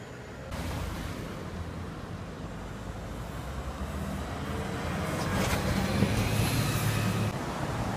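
Orion VII city bus pulling away through a turn and passing close by, its engine and tyres loudest about six seconds in before the sound eases off.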